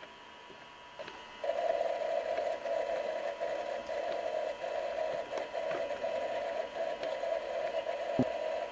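A steady, slightly wavering droning hum that starts suddenly about a second and a half in, over a faint steady whine.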